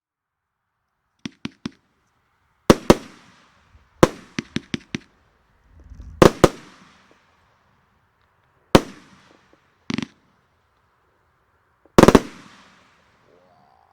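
Riakeo Peking Opera 1 consumer firework cake firing its shots: sharp bangs in small groups of one to four, a second or two apart, each trailing off with a short crackle. The cake includes a crackling effect.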